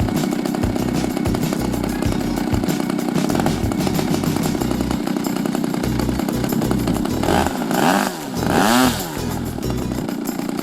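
Engine of a Seagull Models Edge 540 radio-controlled model plane running with a steady, high buzz. Its pitch sweeps up and down between about seven and nine seconds in.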